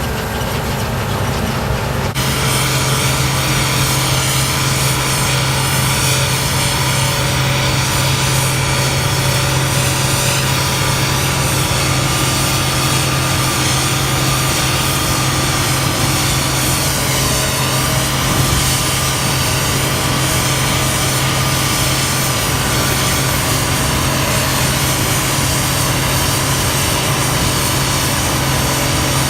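Farm machinery running steadily under load: an engine's steady drone with a dense mechanical whir over it, the whir growing fuller about two seconds in.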